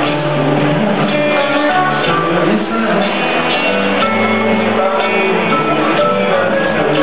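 Live rock band playing, with guitars to the fore.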